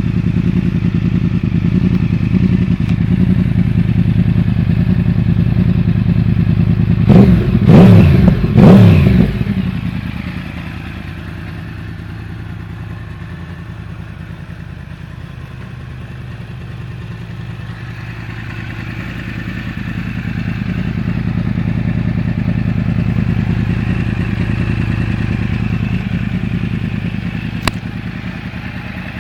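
Yamaha R1 (RN22) crossplane inline-four idling through an Akrapovic exhaust with the dB eater removed, with the uneven 'big bang' beat. About a quarter of the way in it is blipped three times in quick succession, then settles back to idle, growing louder again later on.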